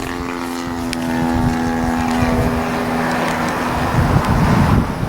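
50cc gasoline engine of a large RC aerobatic plane running in flight, a steady drone easing slightly lower in pitch as the plane sets up to land. Wind buffets the microphone near the end.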